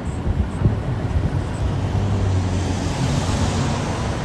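Steady low rumble of heavy construction machinery's diesel engine running, with a rise in higher hiss about three seconds in.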